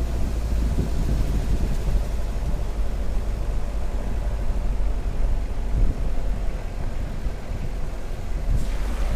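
Jeep Cherokee XJ driving slowly up a dirt track: a steady engine and tyre rumble picked up by a camera on the hood, with wind buffeting the microphone. A brief rush of wind hiss comes near the end.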